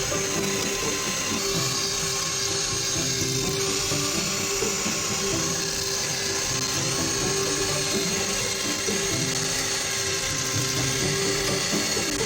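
Trim router running steadily on a wood-lathe jig, a constant high-speed motor whine with no change in speed.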